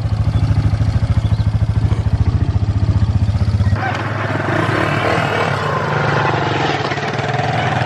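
Quad (ATV) engine running close by with a steady, fast low thudding; about four seconds in the sound cuts abruptly to a hissier, more even engine noise.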